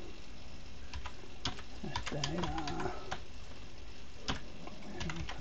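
Computer keyboard keys tapped one at a time in a slow, uneven rhythm as a command is typed.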